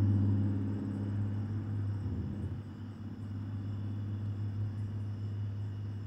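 A motor vehicle's low engine rumble fading away over the first few seconds, leaving a steady low hum.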